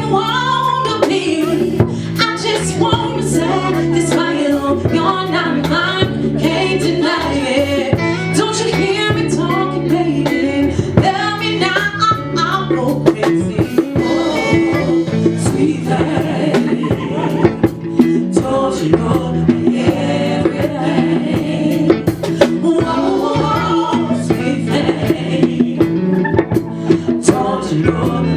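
Live band playing a song with a singer over a steady bass line and drum beat, with keyboard and guitar.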